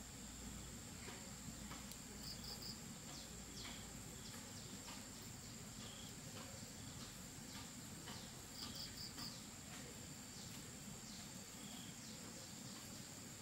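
Insects trilling steadily, with a few short chirps on top: two quick runs of three or four pulses and scattered single notes.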